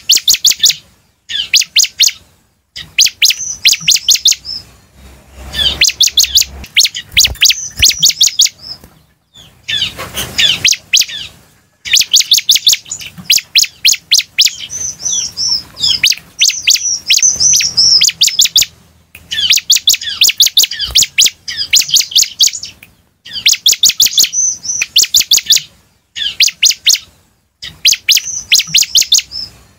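Ciblek (a prinia) singing energetically: rapid runs of sharp, high chirping notes, about ten a second, in bursts of one to three seconds with short pauses between. A brief rustling noise comes about ten seconds in.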